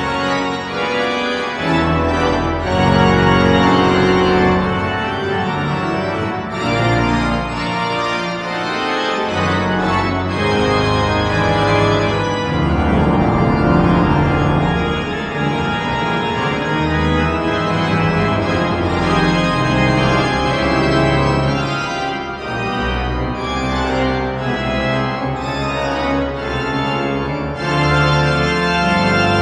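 Pipe organ playing loud, dense sustained chords over low pedal notes that shift every second or two.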